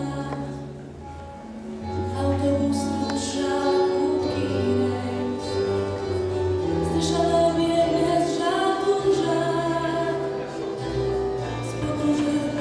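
A song with an instrumental backing played over loudspeakers, sung by a young female singer into a handheld microphone.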